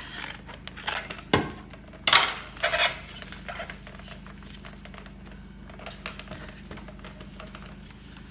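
Scissors cutting through a toy's fur covering along a seam: a sharp click, then two short scraping, rustling sounds of blade and fabric, the first of them the loudest, followed by faint small clicks of handling.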